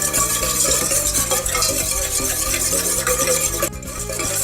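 Salt being stirred into a dressing of rice vinegar and honey in a bowl, mixed well because salt dissolves poorly. The stirring dips briefly near the end.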